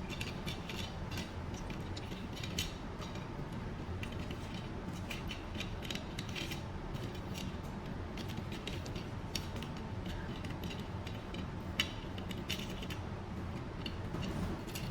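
S-fold curtain track's bead chain (serpentine balls) clicking and rattling as it is fed into the track, with many small irregular clicks over a steady low hum.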